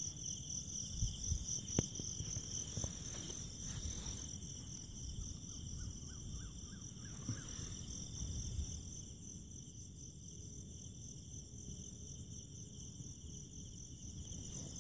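Crickets and other night insects chirring in steady high trills at several pitches, with a low rumble underneath.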